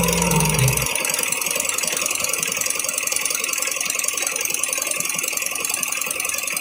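Single-head computerized embroidery machine stitching, its needle bar driving a fast, even run of strokes.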